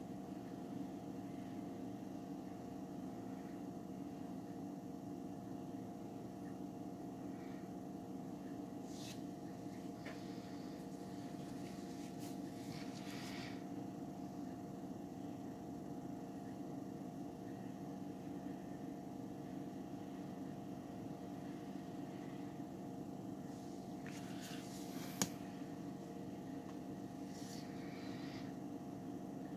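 Steady low background hum, with a few faint brief rustles and a single sharp click about 25 seconds in.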